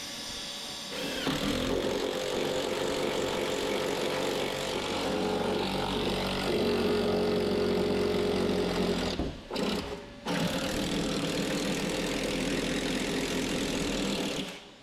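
Power drill boring into hard jarrah timber, its motor running steadily under load, cutting out twice briefly about nine and ten seconds in, then stopping near the end.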